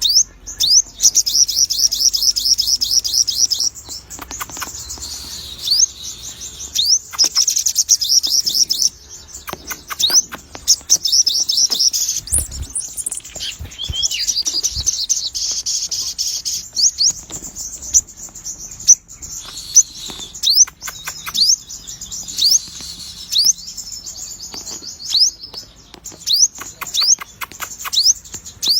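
Sogon bird in full song: long, fast trills of high chirps lasting a few seconds each, alternating with single sharp rising whistled notes.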